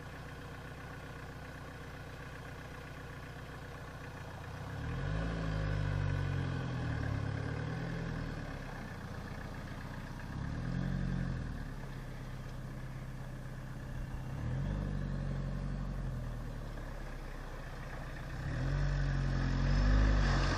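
Off-road 4x4's engine running steadily, then revved in four surges, each rising and falling in pitch over a couple of seconds, the last one the loudest.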